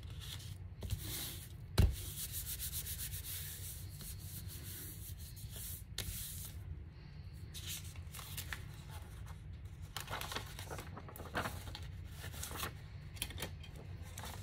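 Hands rubbing and smoothing a sheet of freshly glued paper flat onto a paper envelope: repeated dry swishes of skin and paper. There is a single sharp tap about two seconds in.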